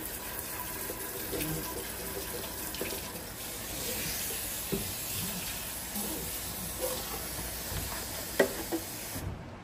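Kitchen tap running steadily as a blender jar is rinsed under it, with a sharp knock of the jar about eight seconds in; the water cuts off near the end.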